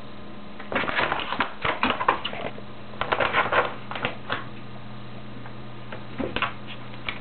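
Scratching and rustling on the cloth-draped ironing board, coming in several short bursts of quick scrapes, over a faint steady hum.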